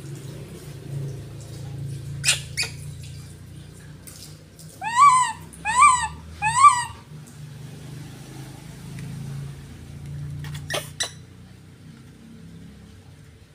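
Baby macaque giving three short calls in quick succession near the middle, each rising then falling in pitch. There are a couple of pairs of sharp clicks before and after, over a low steady hum.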